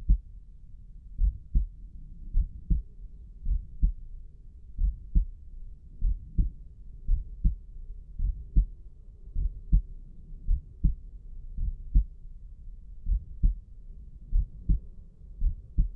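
A human heartbeat heard through a stethoscope pressed to the chest at Erb's point: steady pairs of deep lub-dub thumps, a little under one beat a second.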